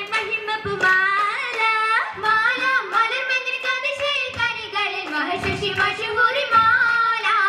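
Girls' voices singing an Oppana song (Mappila song) together, amplified through microphones, with a continuous melody of held and gliding notes.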